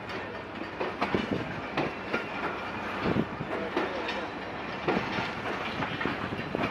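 Karakoram Express passenger coaches rolling past as the train pulls out, a steady rumble broken by irregular sharp knocks from the wheels on the track.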